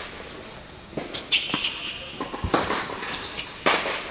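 Tennis rally on an indoor hard court: sharp pops of the racket striking the ball and the ball bouncing, the loudest hits about two and a half and three and a half seconds in. A tennis shoe squeaks on the court briefly about a second in.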